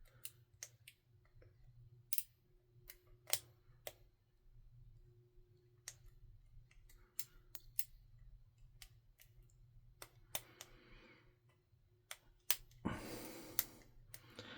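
Lock picking in a small 30mm pin-tumbler padlock: irregular sharp clicks of the pick and pins setting. The clicks are scattered, with a brief rush of noise near the end.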